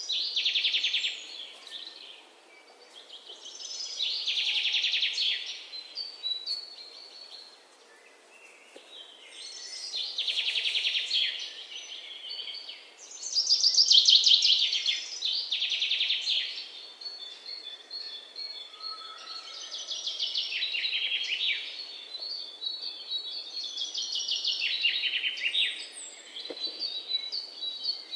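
Songbird singing: phrases of rapid chirps and trills every few seconds, some with short held whistled notes, with quieter gaps between.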